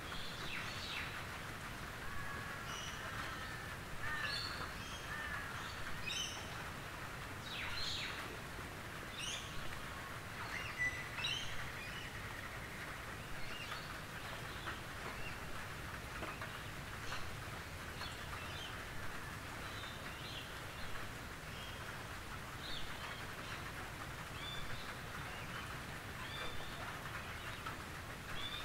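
Gentle rain pattering steadily on a tin roof, with birds chirping over it.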